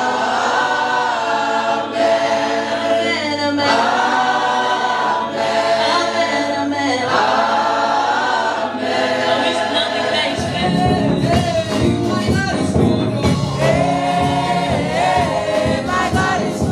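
Church choir singing a gospel song, unaccompanied at first; about ten seconds in, a bass-heavy accompaniment comes in under the voices.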